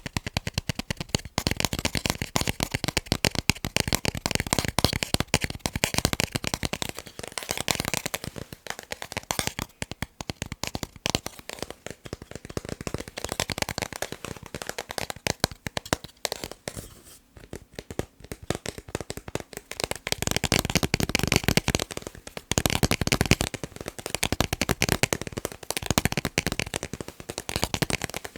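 Fast tapping on picture frames: a rapid, dense run of taps that thins out into a short lull a little past halfway, then picks up again.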